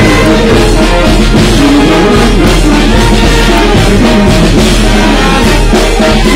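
Loud band music with a steady drum beat.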